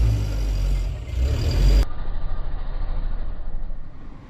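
A truck's engine running close by, a loud deep rumble that cuts off abruptly just under two seconds in. A quieter, muffled rumbling noise follows.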